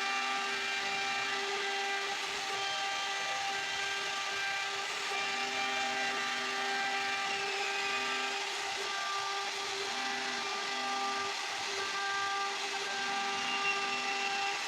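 CNC router spindle running with a steady high whine while its bit cuts wood, over a constant hiss of cutting.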